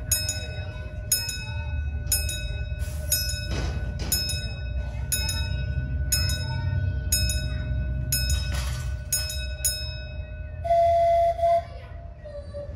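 Miniature railway level crossing bell ringing in regular strikes, a little more than one a second, as the crossing barriers lower, over the low rumble of the approaching miniature train. Near the end a loud steady horn-like tone sounds for about a second.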